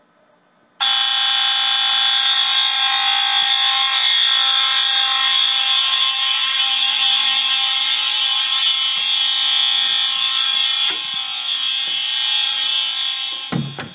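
Fire alarm system going into alarm about a second in, after a magnet trips the smoke detector: the horns, including a Wheelock MT-24-LSM set on continuous horn, start suddenly and sound a loud, steady buzzing tone. Near the end there is a thump, after which the alarm sounds much quieter and muffled.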